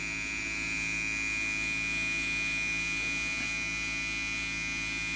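Electric hair trimmer buzzing steadily as it runs, edging the hairline around the ear.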